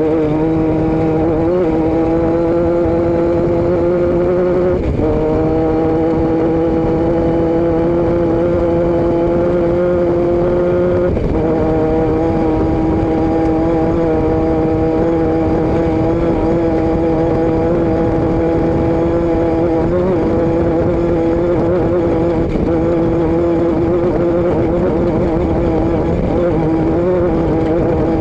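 Vehicle engine and exhaust running under way, a steady droning tone over road and wind rumble. The pitch creeps up, drops abruptly about five seconds in and again about eleven seconds in, then holds level.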